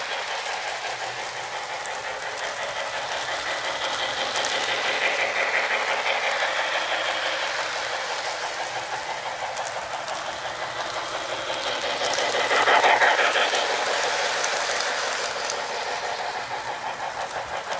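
Lionel New York Central Flyer O-gauge train set running with its TrainSounds: the tender's speaker plays steam-locomotive chuffing in a quick, even rhythm as the train circles the track. The sound swells louder about two-thirds of the way through.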